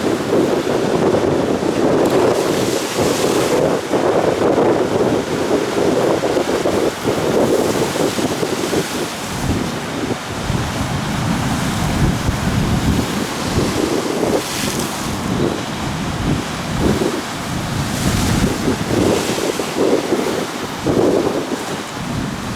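Rough sea surf churning and breaking in a strong wind, with gusts buffeting the microphone. A few waves wash in with a brief hiss.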